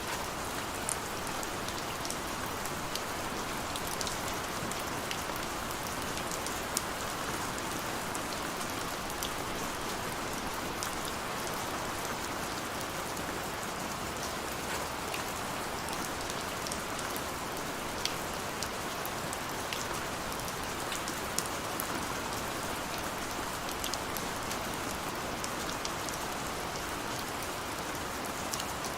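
Steady rain falling and running, with a constant hiss and scattered sharp drop ticks throughout.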